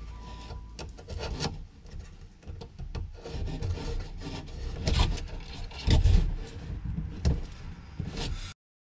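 Irregular scraping and rasping strokes of a hand tool trimming a piece so it sits flush, with a few sharp knocks among them; the sound cuts off suddenly near the end.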